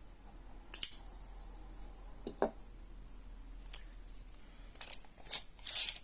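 Handling noise as a folding knife is moved and positioned for measuring: scattered light clicks and rustles, busiest near the end.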